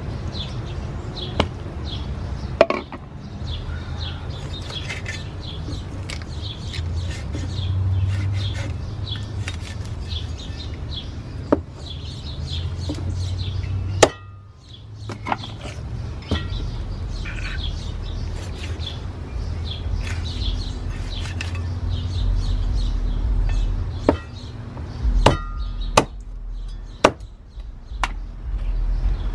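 Steel cleaver chopping through a whole raw chicken onto a wooden stump chopping block. The sharp chops come a few seconds apart, then about five in quicker succession near the end, with birds chirping in the background.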